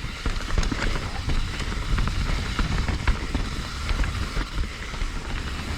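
Mountain bike rattling and clattering over rough trail at speed, with scattered clicks and knocks from the bike, under the low rumble of wind buffeting the microphone.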